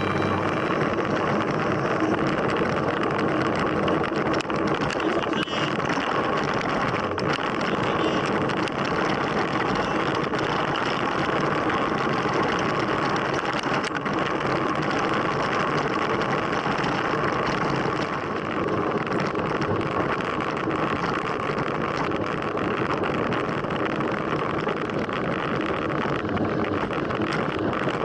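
Steady rush of wind and rolling noise picked up on a moving mountain bike, with scattered small rattles and clicks.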